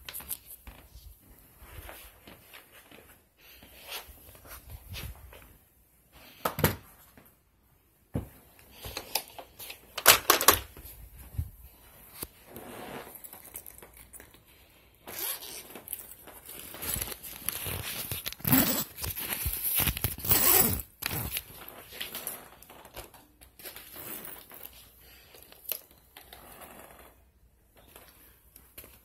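Irregular rustling, scraping and knocks of things being handled close to a phone's microphone, loudest in a longer stretch of scraping from about fifteen to twenty-one seconds in.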